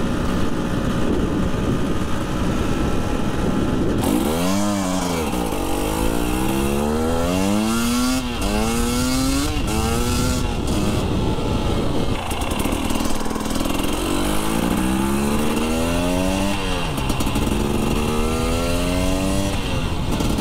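New Husqvarna two-stroke motorcycle accelerating on the road while being run in. Its engine pitch climbs, drops back at each gear change and climbs again several times, with wind noise over the engine at first.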